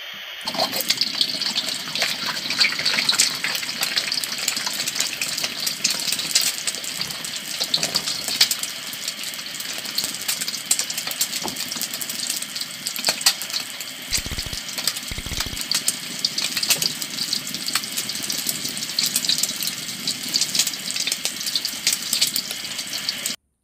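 Frying sizzle: oil crackling and hissing in a pan, a dense steady crackle that starts about half a second in and cuts off abruptly near the end.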